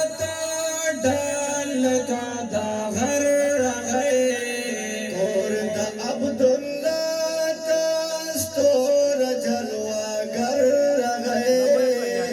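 A voice singing a Pashto naat, a devotional song in praise of the Prophet, in a chanting melody over held backing tones.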